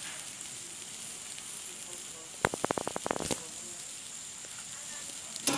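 Whole marinated koral fish (Asian sea bass) sizzling in a wire grilling basket over a charcoal fire, a steady hiss. A quick run of sharp crackles about two and a half seconds in, and a few more near the end.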